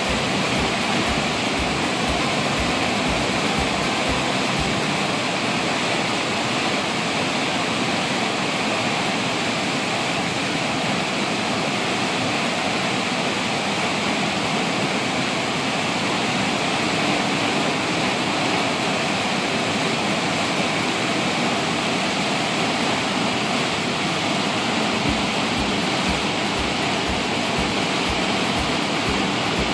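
Floodwater rushing and churning through a dam's spillway gates in a steady, even rush. The water is being released from a full lake to keep it from overflowing.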